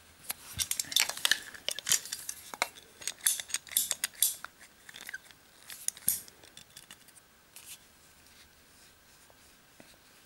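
A scissor-type plastic pipe cutter being worked on the end of a length of white plastic plumbing pipe, trimming it for a cleaner cut. There are sharp clicks and handling rustle, mostly in the first half and again about six seconds in, then it goes quieter near the end.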